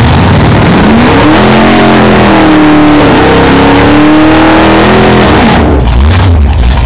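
Drag-racing Mustang's engine revving hard over a loud rushing hiss, its pitch climbing at first, then dropping and rising again several times. The hiss cuts off and the revs fall away about five and a half seconds in.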